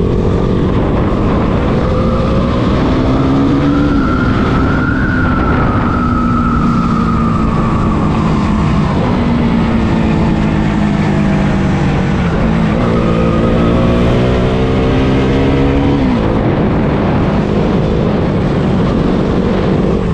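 Motorcycle engine running while riding, its pitch rising and falling several times with the throttle, over a steady rush of wind and road noise.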